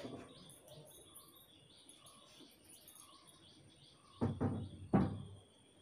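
Birds chirping faintly in the background, then, about four seconds in, two loud sudden sneezes from a person, about a second apart.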